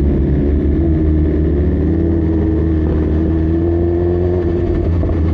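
Motorcycle engine running under way, its pitch climbing slowly and dropping off near the end.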